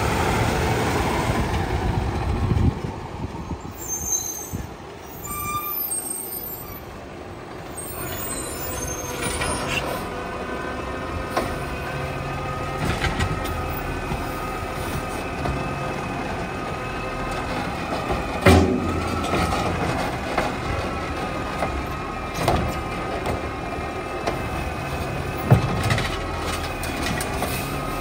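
Automated side-loader garbage truck running, its diesel engine and hydraulic arm working, with a steady whine from about a third of the way in. Several sharp clunks come from the arm and cart as a trash cart is grabbed and handled, the loudest about two-thirds in and again near the end.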